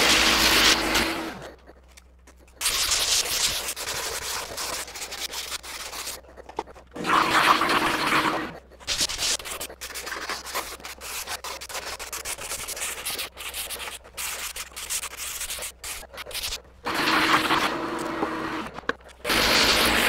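Random orbital sander running against a kayak seat, a steady motor hum under hissing abrasive noise, at the start and again near the end. In between there are stretches of quieter, uneven rubbing as the surface is sanded by hand with a pad, broken by short gaps.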